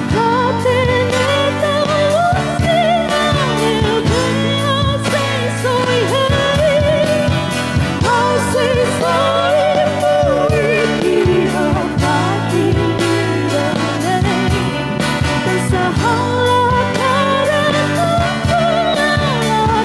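Live rock band: a woman singing a melody in Tetum over electric and acoustic guitars, bass and a drum kit with steady cymbal strokes.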